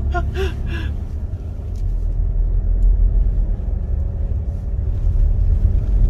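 Car engine and tyre rumble heard from inside the cabin while driving, a steady low rumble that gets louder about two seconds in.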